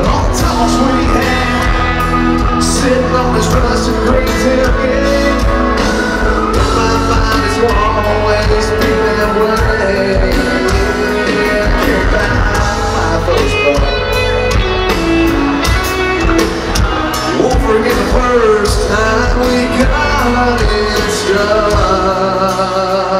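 A live country-rock band playing loud amplified music, with electric bass, keyboard, drums and guitars under a sung vocal line.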